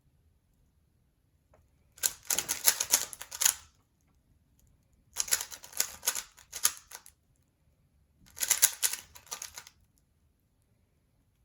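A 3x3 Rubik's cube being turned fast: three runs of rapid plastic clicking, each a second and a half to two seconds long, with pauses between them.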